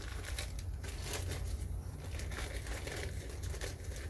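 Paper seed packets in clear plastic bags crinkling and rustling as they are sorted through by hand, in irregular short rustles.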